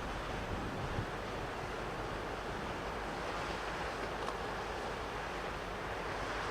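Steady rush of wind and harbour water, with gusts buffeting the microphone in uneven low thumps.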